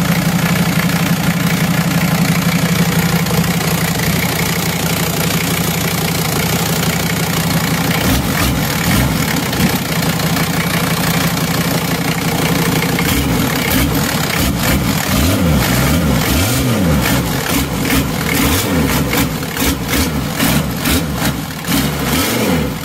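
Mercedes-Benz OM617 five-cylinder diesel engine running on its newly fitted M injection pump: a steady idle at first, then from about eight seconds in revved up and down repeatedly by hand at the pump's throttle, the pitch rising and falling, with sharp knocks through the later part.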